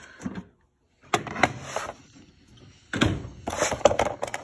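A boxed tool set being unpacked: a scrape as the case slides out of its cardboard box a little over a second in, then a run of knocks and scrapes in the last second and a half.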